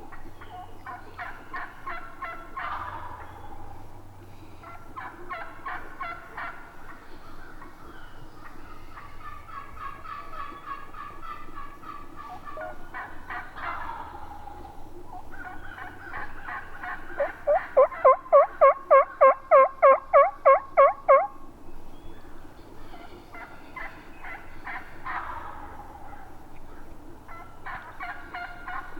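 Wild turkey gobbling again and again, each gobble a rapid rattling run of notes. About two-thirds of the way through comes a louder series of about a dozen evenly spaced turkey yelps.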